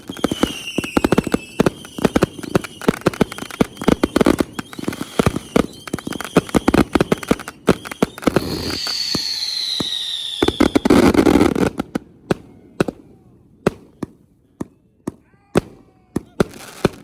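Consumer fireworks finale: dense rapid bangs and crackling with whistling tones, then a louder whistle falling in pitch around nine to ten seconds in. After that the barrage thins to scattered single bangs a second or so apart.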